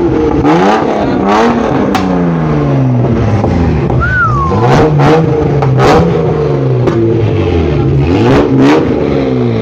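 A car engine revving hard, its pitch climbing and falling again and again, with a short high squeal about four seconds in.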